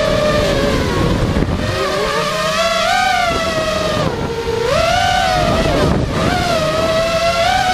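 FPV racing quadcopter's electric motors and propellers whining, the pitch rising and falling with the throttle and dropping sharply about four seconds in before climbing again. Wind buffets the onboard camera's microphone underneath.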